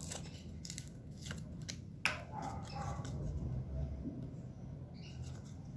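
Faint handling noises as a small plastic super-glue bottle and an EVA foam strip are handled: light clicks and taps, with a sharper click about two seconds in, over a low steady hum.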